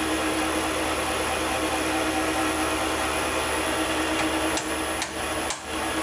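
Chinese mini lathe running with its spindle and chuck turning free, not yet cutting: a steady motor-and-gear hum with a high whine. The steady sound dips briefly a couple of times near the end.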